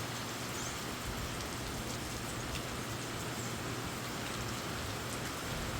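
Steady rain shower falling outdoors, an even hiss with faint drop ticks.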